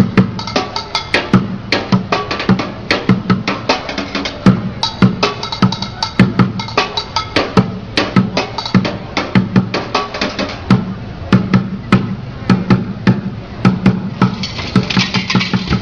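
Street drummer playing a fast, busy beat with sticks on upturned plastic buckets and a plastic box, the bucket bottoms giving deep thuds under sharp, rapid high hits. A bright, hissing wash comes in about two seconds before the end.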